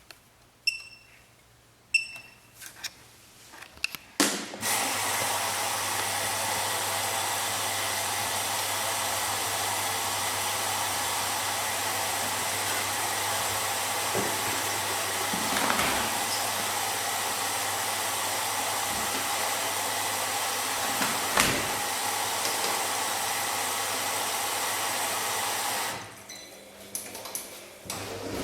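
Bosch MAXX 6 washing machine: two short beeps, then a steady rush of water filling the machine through the inlet valve over a low hum, for about twenty seconds. It stops suddenly, followed by a few clicks.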